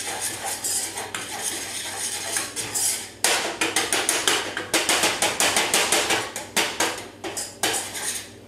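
A metal utensil stirring and scraping breadcrumbs and melted coconut oil in a small stainless steel saucepan. It starts as soft scraping, then from about a third of the way in becomes rapid clinking of metal on the pot, several strikes a second.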